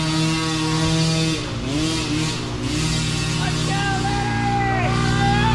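Mini dirt bike engines running and revving, several at once, their pitch repeatedly rising and falling as the throttle is worked on a rough climb.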